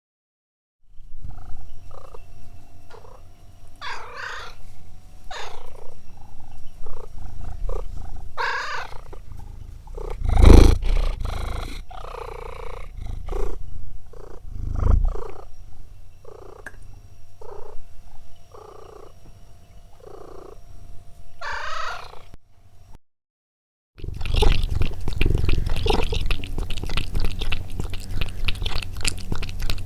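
Domestic cat purring close to the microphone: a steady low rumble with a rhythmic breath sound about once a second, and a couple of louder bumps partway through. After a short gap, a second cat's purr follows, denser and faster-pulsing.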